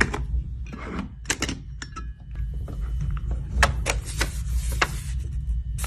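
Irregular clicks and knocks of a puzzle box's parts being handled and set down, about a dozen sharp taps over a steady low rumble.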